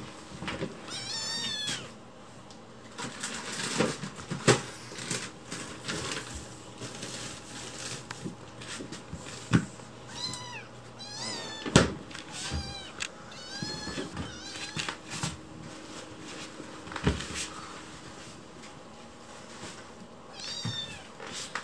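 Young kitten meowing repeatedly in high, wavering calls, begging for food. Most of the meows fall in a run through the middle and one comes near the end, with sharp knocks and taps in between.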